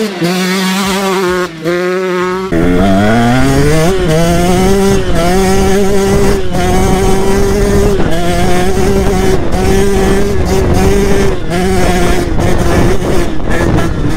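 2022 KTM 125 SX two-stroke motocross bike running hard: the engine holds a steady pitch, then about two and a half seconds in it climbs sharply and stays high, dipping briefly every second or so. The sound echoes off the surrounding mountains.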